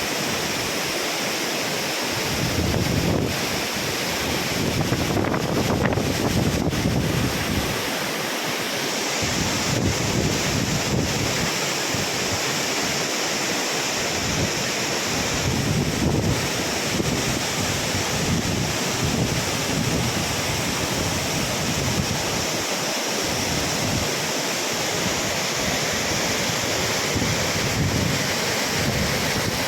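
Steady rush of a waterfall, with wind buffeting the microphone in irregular low gusts.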